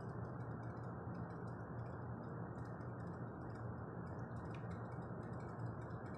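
Steady low hum and hiss of background noise, with faint irregular ticking throughout.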